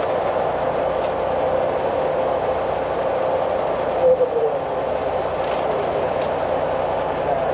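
Heavy diesel machinery running steadily, a constant mechanical hum and noise, with a brief higher tone about four seconds in.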